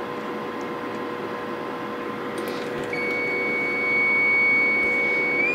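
A steady audio test tone from a tone generator sounds over a background of hiss and low hum, starting about three seconds in at around 2 kHz. Near the end it begins sliding upward in pitch as the generator is turned toward 3 kHz.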